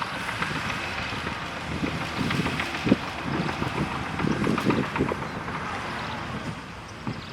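Bulldozer working, its diesel engine running unevenly under load with scattered clanks, and wind buffeting the microphone.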